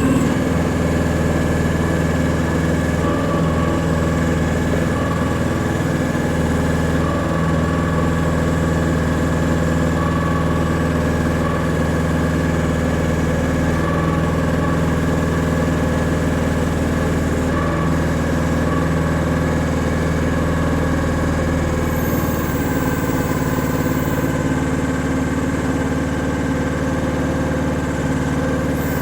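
Chinese-built micro excavator's engine running steadily; its note shifts about 22 seconds in.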